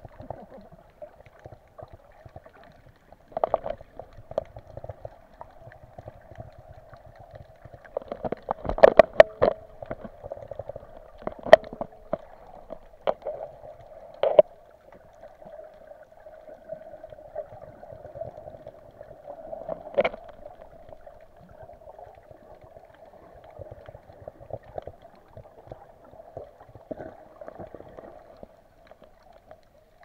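Underwater sound of a snorkeler swimming with fins, heard through a camera's waterproof housing: a steady muffled hum with scattered knocks and short sloshing, bubbling bursts, a cluster of them about a third of the way in.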